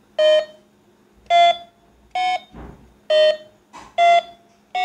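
Battery-operated toy telephone's keypad beeping as its number buttons are pressed one after another. There are six short electronic beeps, roughly a second apart, each a buzzy tone of much the same pitch.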